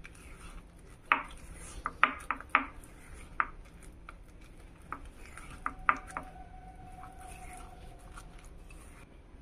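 A spatula stirring a thick sugar scrub in a glass bowl: irregular scrapes and taps against the glass with a soft sticky squish, busiest in the first six seconds.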